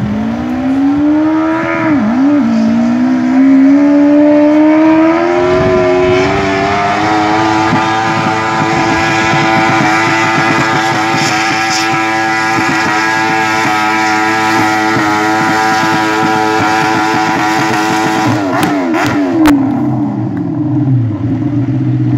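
Small lawnmower engine speeding up over several seconds, holding a steady high speed, then dropping back to a low idle near the end, with a few sharp clicks as it slows.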